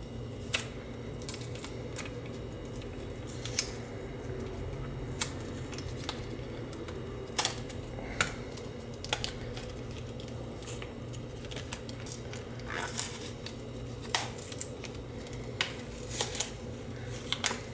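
A soaked paper label being peeled by hand off a disposable camera's plastic body: scattered small clicks and crackles of fingernails, paper and plastic, at irregular intervals over a steady low hum.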